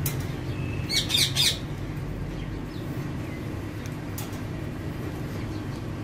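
Alexandrine parakeet giving a quick burst of three or four harsh squawks about a second in, over a steady low background hum.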